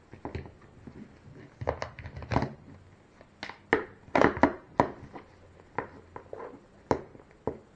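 Hands handling small parts: irregular clicks, taps and crinkling, loudest about four seconds in.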